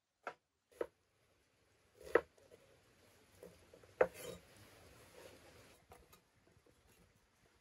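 Cleaver chopping an onion on a wooden cutting board: about four separate knocks of the blade striking the board, the loudest about two and four seconds in, with faint scraping between.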